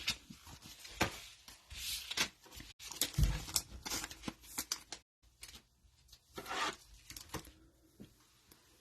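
Trading cards being handled and flipped through: a string of soft paper swishes and light snaps, with a dull thump a few seconds in.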